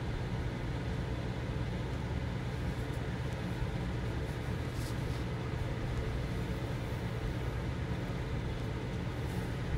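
Steady low background rumble and hum, unchanging throughout.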